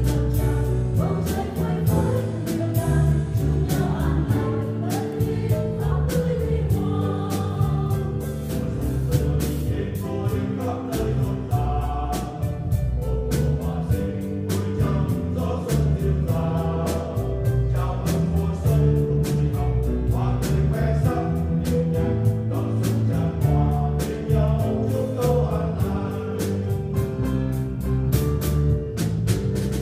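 Mixed choir singing a Vietnamese hymn in unison and parts, with a drum kit keeping a steady beat.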